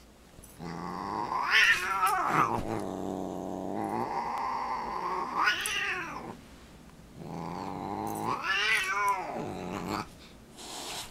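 Siamese cat growling and yowling in three long drawn-out cries, each swelling into a rising and falling wail before it breaks off, as it swats at the dog.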